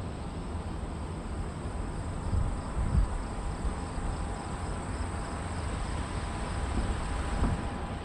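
Steady hum of a camera drone's motors and propellers, with wind rumbling on the microphone in low gusts that swell a little before halfway and again near the end.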